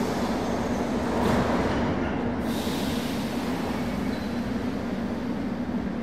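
Moscow Metro platform: the steady rumble of a metro train with a low, even hum, and a brief hiss about two and a half seconds in.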